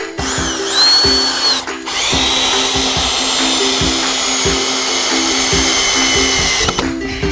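Cordless drill running into wooden framing lumber: a short run, then a longer steady run starting about two seconds in and lasting about five seconds, with ukulele music underneath.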